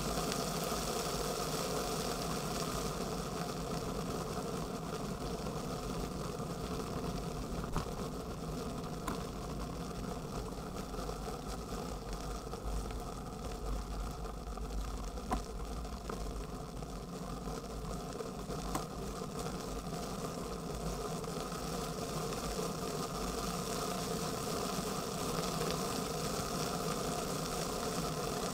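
Steady rolling rumble and hum of a bicycle ride on asphalt, picked up by a camera mounted under the handlebars, with a few short sharp ticks.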